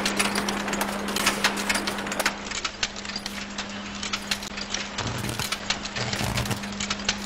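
Automatic chain-making machine running: rapid metallic clicking and clattering over a steady hum. From about five seconds in, a low buzz comes and goes in short pulses as the links are welded.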